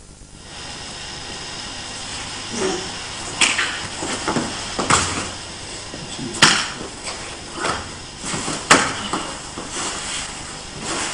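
Two people grappling on a training mat: clothing rustling and bodies shifting, with several sharp slaps of hands and bodies hitting the mat, over a steady hiss.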